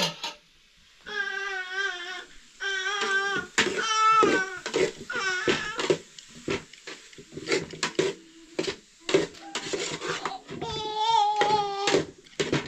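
Baby vocalizing in long, high, wavering cries and babble, with short sharp taps in between.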